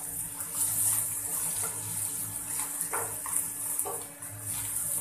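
Shredded vegetables and egg sizzling in a nonstick frying pan with a steady hiss, while a wooden spatula stirs them, scraping and knocking against the pan several times.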